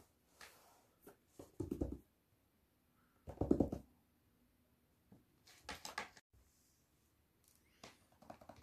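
Short bursts of rustling and scraping, about four, from movement in a clear plastic laundry basket holding a cat. The loudest comes about three and a half seconds in.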